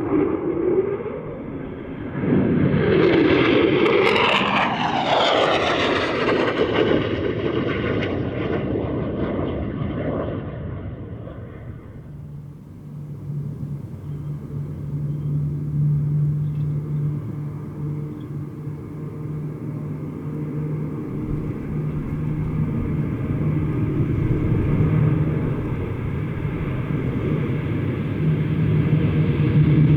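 Low-flying military aircraft passing close: a loud rush with its pitch sweeping up and then down over the first several seconds. It is followed by a steady propeller drone with a low even hum, which dips about twelve seconds in and builds again near the end.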